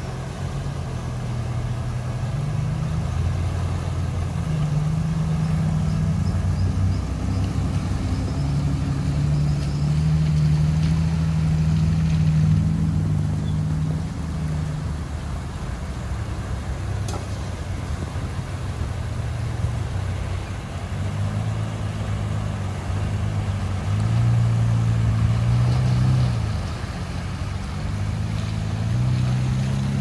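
Four-wheel-drive wagons wading through a river crossing, the engines running under load and their note rising and falling as they push through the water, with water splashing around the wheels. The engine gets loudest twice, once about a third of the way in and again near the end.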